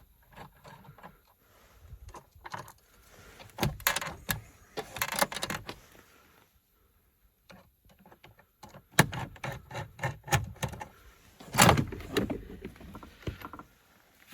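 Irregular clicks, knocks and rustling of a screw-fastened cover panel in an Iveco Daily being unscrewed and taken off. There is a quiet pause in the middle, and one sharp knock stands out near the end.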